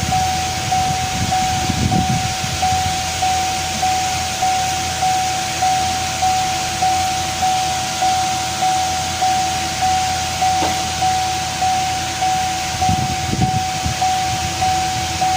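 Electronic warning chime dinging at one steady pitch, about three dings every two seconds, over a steady background hum.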